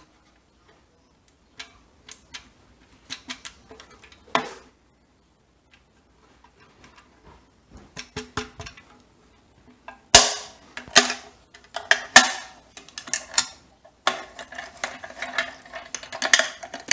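Thin aluminium drink can crackling and crinkling as a 3D-printed plastic clamp crushes it. Scattered clicks and small crackles come first, then a dense run of loud crunching crinkles from about ten seconds in.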